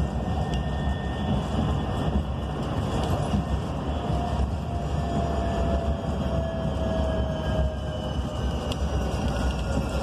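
Cabin of a 2019 BYD K9M battery-electric bus on the move: steady low road and tyre rumble, with a faint whine from its electric traction motors that shifts slowly in pitch.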